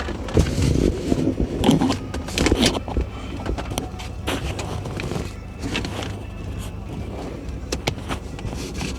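Irregular clicks, knocks and scrapes of hands handling plastic car dashboard parts, over a steady low rumble.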